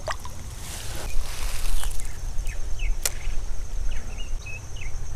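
A brief rush of splashing water as a small fish slips out of a landing net into the creek, over a steady low wind rumble on the microphone and a steady high insect trill. A single sharp click comes about three seconds in, with a few faint short chirps after it.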